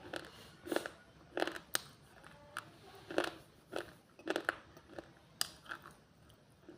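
Pieces of dry baked clay being bitten and chewed close to the microphone: a run of about ten sharp, brittle crunches at uneven intervals of roughly half a second.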